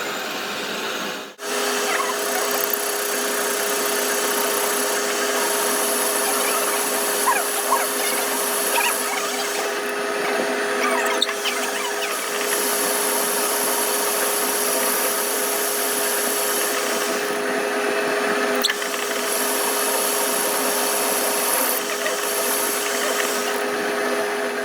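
A power tool or machine running steadily with a constant hum. A hiss comes and goes over it, as in metalworking. It starts just after a brief dropout about a second in.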